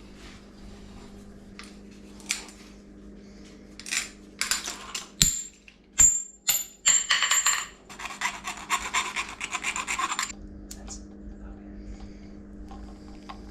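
Hand work on bicycle parts: scraping and rubbing in bursts with two sharp metallic clicks that ring briefly, the densest stretch of rapid scraping lasting about two seconds near the middle, over a steady low hum.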